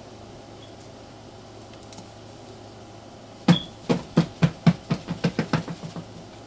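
A run of about a dozen sharp knocks, the first few loudest, coming faster and fading away toward the end.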